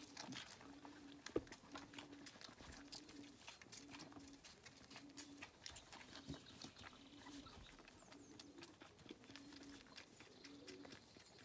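Lambs sucking on milk bottles, giving faint wet sucking clicks. A short low cooing note repeats about every two-thirds of a second throughout.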